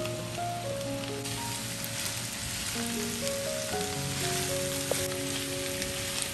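Mushrooms and ground meat sizzling in a hot frying pan, the sizzle growing stronger about a second in, with background music of slow held notes over it.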